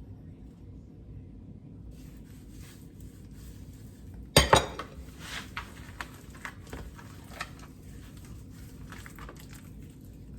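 A sharp clatter of kitchenware being knocked or set down about four seconds in, amid light clicks and handling noises of gloved hands rubbing seasoning into raw pork ribs.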